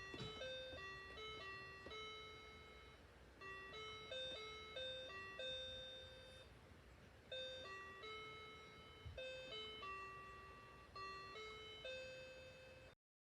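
Cheap $5 electronic keyboard playing a simple melody one note at a time, in short phrases with brief pauses between them. The sound cuts off suddenly near the end.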